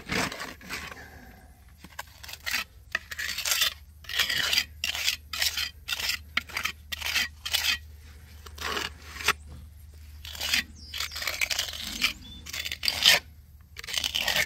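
Steel square trowel scraping against a concrete foundation wall as it packs stiff-mixed fast-set cement grout into spalled holes, in a run of short strokes at about two a second.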